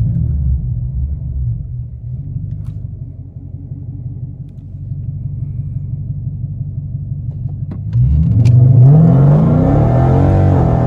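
Dodge Hemi V8 with catless mid pipes rumbling at low revs, then about eight seconds in the throttle opens hard and the exhaust gets suddenly loud as the engine revs up under full acceleration.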